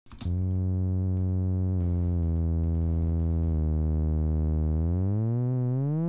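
Pitched synth riser from Logic Pro X's Alchemy synth: a low, buzzy tone rich in harmonics holds nearly steady with small upward steps in pitch, then starts gliding upward about five seconds in as its coarse-tune and filter-cutoff automation ramp up.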